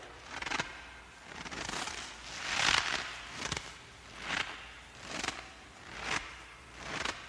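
Footsteps crunching in snow at a steady walking pace, about one step a second, each crunch swelling and fading.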